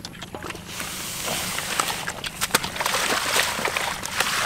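Shallow water splashing and sloshing as it is stirred by hand among grass, with many small irregular splashes; it gets louder about a second in.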